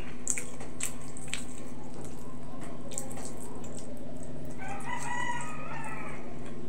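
A rooster crowing once, a pitched call of about a second and a half, past the middle, over a steady low hum. A few soft clicks of eating by hand come in the first few seconds.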